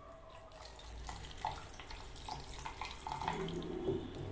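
Water poured from a cup into a stainless steel mixer-grinder jar, splashing onto apple pieces and ice cubes as the jar fills.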